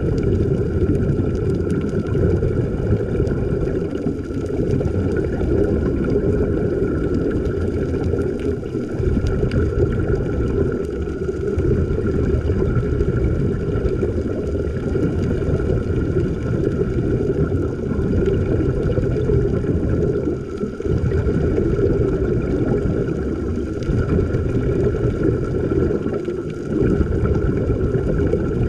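A running motor: a steady low rumble with a constant hum above it, with only small dips in level.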